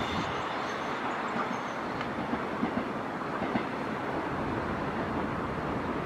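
Sanyo 3000 series electric train running away after departing, with a steady rolling noise and a few faint knocks from the wheels.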